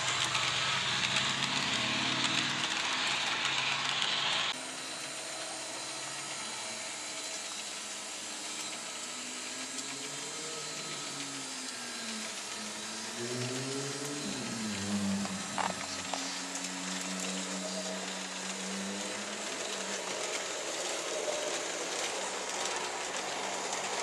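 Märklin HO model freight train running on a layout, two Re 4/4 II locomotives pulling container wagons: a steady rolling and motor noise. It is louder and hissier at first and drops suddenly about four and a half seconds in. In the middle the motor whine rises and falls in pitch several times as the speed changes, with a single click partway through.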